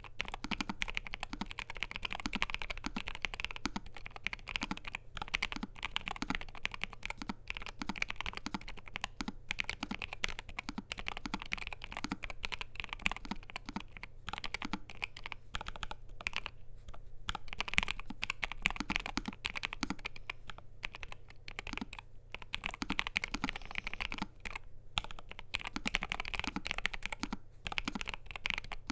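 Typing on a NuPhy Air75 V2 low-profile mechanical keyboard with NuPhy Cowberry switches, PBT double-shot keycaps and an aluminium plate: a steady stream of fast keystroke clacks, with short pauses.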